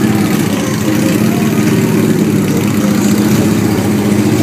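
Several Victory V-twin motorcycle engines running at idle and low speed as a column of bikes rolls slowly past, a steady low rumble.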